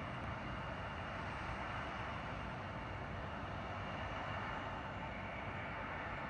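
Distant jet engines of a Boeing 767-300ER running on the runway: a steady rush with a faint high whine.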